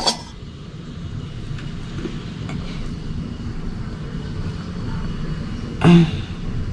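A steady low background rumble, with one short, louder sound about six seconds in.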